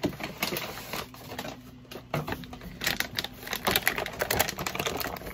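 Plastic shoe bags and packing paper rustling and crinkling in irregular crackles as they are handled and pulled from a shoebox.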